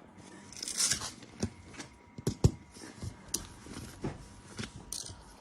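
A heavy waterproof fabric bag being opened and its contents handled: a rustle of fabric about a second in, then a series of short knocks and thumps.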